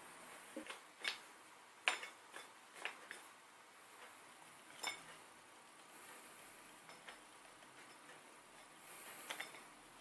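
About ten light, sharp clicks and taps of hard objects being handled, spaced irregularly, the loudest about two seconds in and a quick pair near the end.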